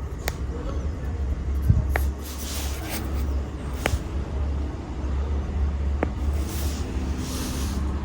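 Vehicle running with a steady low rumble, with a few sharp scattered clicks and some soft hissing.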